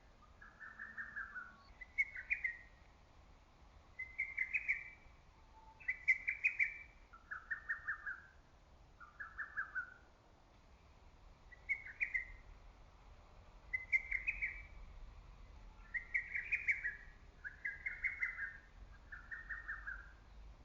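Lesser cuckoo singing loud phrases of rapid staccato notes, repeated every couple of seconds, some phrases stepping down in pitch from note to note.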